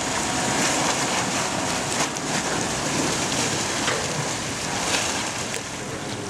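Water splashing and churning as a helicopter underwater egress trainer cabin plunges into a pool and rolls over, with a couple of sharp knocks about 2 and 5 seconds in.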